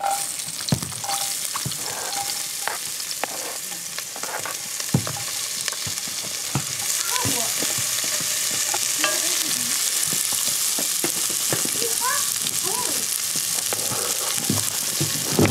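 Chopped onions sizzling in hot butter in a cast-iron Dutch pot. The sizzle starts suddenly as they go in and carries on steadily. A wooden spoon stirring and scraping against the pot adds scattered knocks and clicks.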